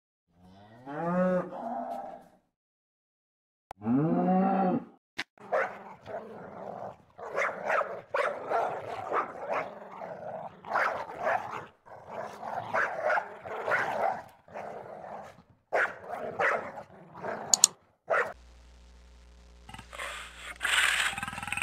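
Holstein dairy cows mooing twice, then a dog barking repeatedly in short irregular bursts, and near the end a tiger starting to growl over a low steady hum.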